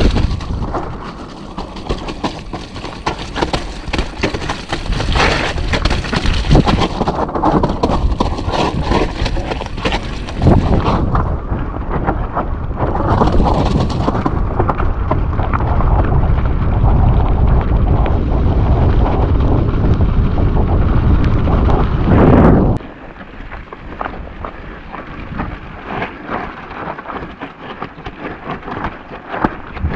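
Strong wind buffeting the microphone during a mountain-bike descent, a heavy rumble mixed with rapid rattling and clatter from the bike over rough ground. The low rumble drops off sharply about two-thirds of the way through.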